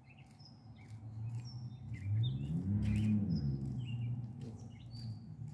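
Small birds chirping repeatedly while a low engine hum swells and passes. The hum's pitch rises and then falls, and it is loudest about three seconds in.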